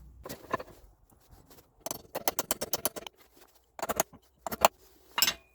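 Hammer tapping a steel key into its keyway on a shaft of a Mercedes W123 rear differential, in sharp metallic strikes: a couple of single taps, a quick run of about eight blows, then a few more.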